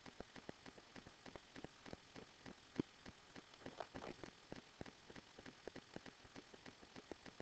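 Faint, irregular crackling clicks, several a second, over a low hiss, with one louder click about three seconds in.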